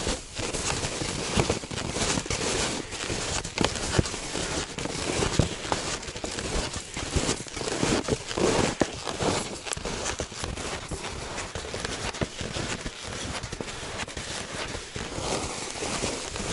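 Wide 'Taezhnye' hunting skis crunching and squeaking over firm, frozen snow, step after step in an ongoing walking stride, with small crackles as the skis slide and press down.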